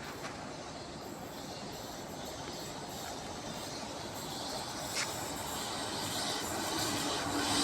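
Approaching train of ICF passenger coaches, its rumble growing steadily louder as it nears. A single sharp click about five seconds in.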